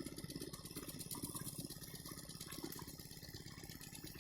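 Faint, steady, rapid chugging of an engine-driven water pump draining the canal, with water rushing.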